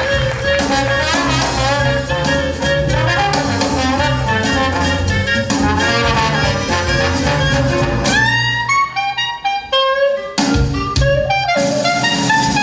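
Jazz-style show music with horns over a steady beat and bass. About eight seconds in, the bass and beat drop out for a couple of seconds of rising, sliding notes and short stabs, then come back in.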